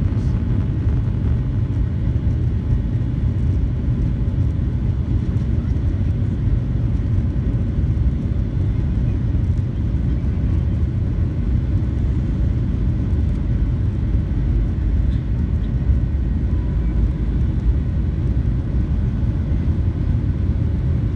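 Cabin noise of a Boeing 737-800 taxiing: a steady low rumble from its idling CFM56 engines and its wheels rolling over the taxiway.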